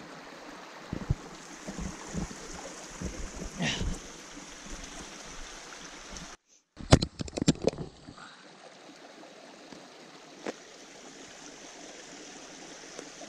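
Steady rush of running water from a small mountain stream, with scattered low thumps. The sound cuts out briefly about six and a half seconds in, followed by a quick cluster of knocks.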